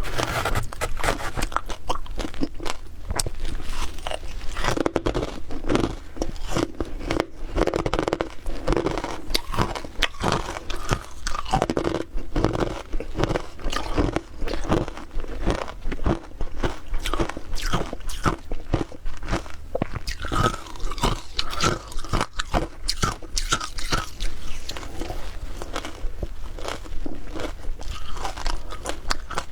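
Mouthful after mouthful of frozen shaved ice being bitten and chewed, a dense, continuous crunching and crackling.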